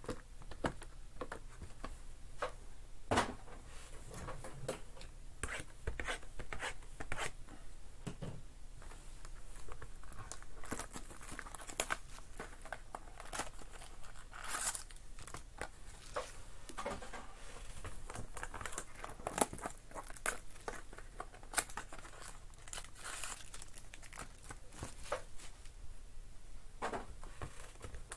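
Hands tearing open a sealed Topps Museum Collection cardboard pack box and handling the foil-wrapped card pack inside: a run of irregular rips, crinkles and small clicks.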